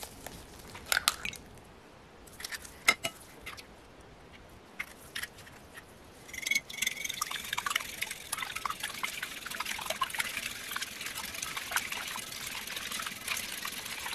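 Eggs being cracked, a few sharp taps in the first three seconds, then from about six and a half seconds in a whisk beating the eggs quickly in a white ceramic bowl with a steady rapid clatter.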